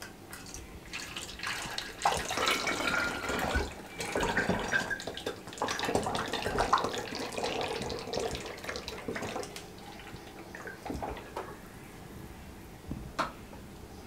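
Lemon squash syrup being poured from a steel pot through a plastic funnel into a glass bottle, a steady pour of liquid that tapers off and stops after about nine seconds. A single sharp knock near the end.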